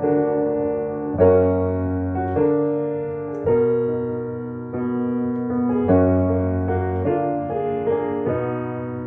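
Acoustic piano playing a slow solo piece: two-hand chords struck about once a second, each ringing on into the next.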